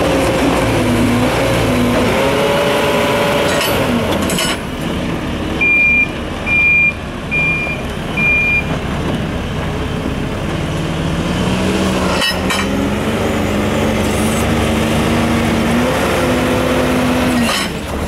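JCB Loadall telehandler's diesel engine running under load, its pitch rising and falling as the machine works a concrete mixer bucket into a pile of aggregate. About five seconds in, a reversing alarm beeps four times, and a few sharp knocks sound, one near the middle.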